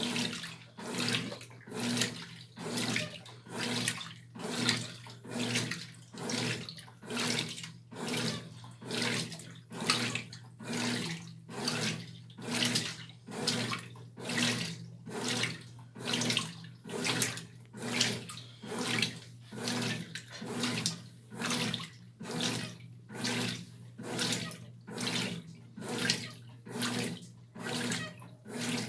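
Brastemp Tira Manchas Pro 12 kg top-loading washing machine agitating a load of clothes. Water sloshes in even surges about once a second over a steady motor hum.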